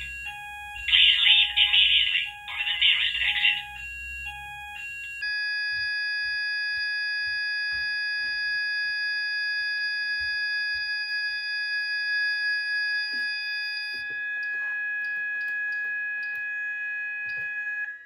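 Fire alarm sounder going off in pulsing bursts, then, about five seconds in, a steady multi-tone electronic alarm tone that cuts off suddenly at the end.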